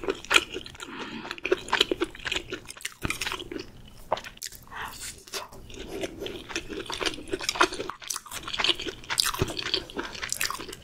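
Close-miked chewing of Korean jeon, pan-fried battered pancakes: a steady run of short clicks and crackles.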